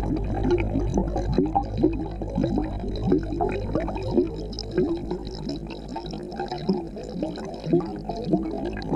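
Aquarium water bubbling and gurgling, heard muffled from underwater inside the tank: a rapid run of bubble blips, several a second, over a low steady hum that fades somewhat midway.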